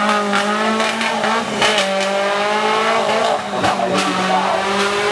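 Off-road 4x4 truck engine held at high revs in a steady drone. The revs dip briefly about three and a half seconds in, and a couple of sharp knocks sound over it.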